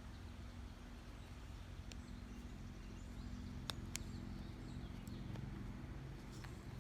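Low steady hum with a few light, sharp clicks of small parts and tools being handled on the workbench during tablet disassembly.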